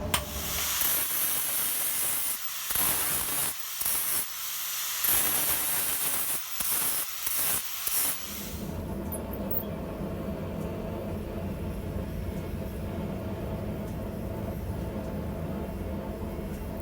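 Hot steel tongs quenched in water, hissing loudly in spurts that stop and start as the piece is dipped and lifted, for about eight seconds. After that, a steady low hum.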